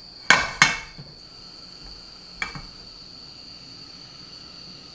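Sharp clicks at a gas stovetop as the burner is lit and the frying pan is handled on the grate: two loud clicks close together about a third of a second in, and a softer one about two and a half seconds in. A steady, faint high whine runs underneath.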